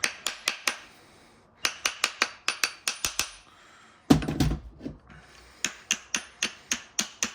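Small hammer tapping on a Makita impact wrench's housing to knock the stuck casing apart: quick runs of light, ringing metal taps, about four or five a second, in three bursts, with one duller knock about four seconds in.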